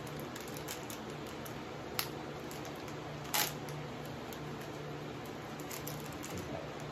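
Small plastic candy wrapper being handled and opened by hand: scattered light crinkles and clicks, with a sharp click about two seconds in and a brief louder crackle about three and a half seconds in, over a steady low hum.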